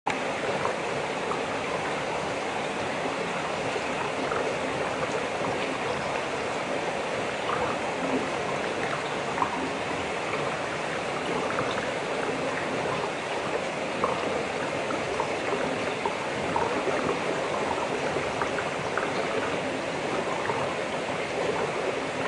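Steady rushing water of a swimming pool, dotted with faint small ticks and splashes.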